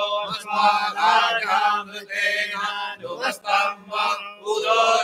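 A group of men chanting Vedic Sanskrit mantras in unison, amplified through microphones, with a few brief pauses for breath and a steady low hum underneath.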